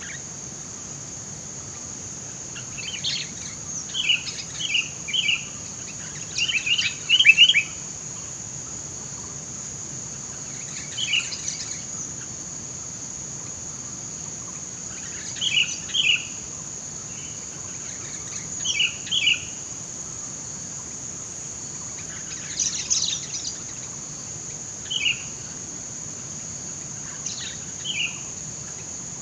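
Sooty-headed bulbuls (kutilang) calling: short chirping notes in clusters of one to four, coming every few seconds, over a steady high-pitched insect drone.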